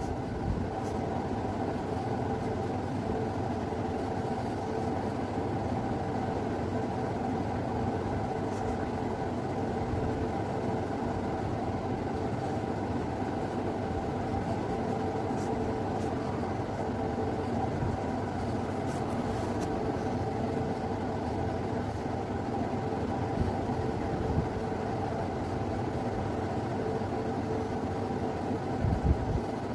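Steady mechanical hum with a faint steady whine, and a few soft knocks near the end.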